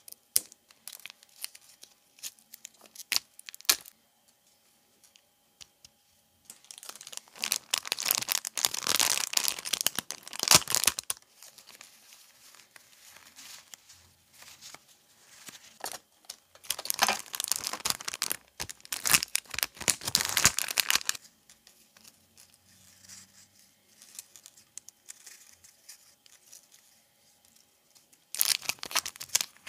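Light clicks and scratches of a craft knife picking at a layered paper die-cut, then three long bursts of crinkling and rustling as clear plastic packets are opened and paper journaling cards and die-cut paper flowers are handled.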